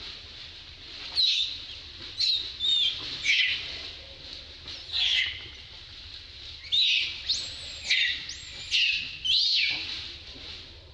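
Newborn long-tailed macaque crying in about ten short, high-pitched squeals, some sliding up and down in pitch: infant distress calls while its mother handles it.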